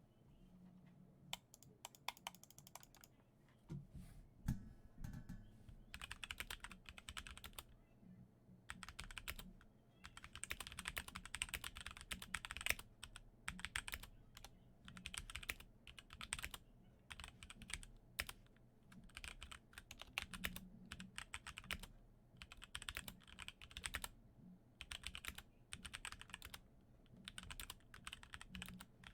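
Typing on a HyperX Alloy Origins Core TKL mechanical keyboard with tactile HyperX Aqua switches: a few single keystrokes, then bursts of fast typing with short pauses between them.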